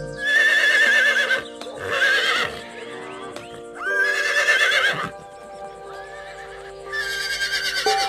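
A horse whinnying four times, each a quavering neigh about a second long, as a sound effect laid over background music with held notes.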